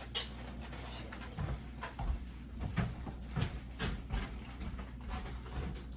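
Kitchen handling noises: scattered light knocks and clicks, like cupboards, utensils and dishes being moved, over a steady low hum.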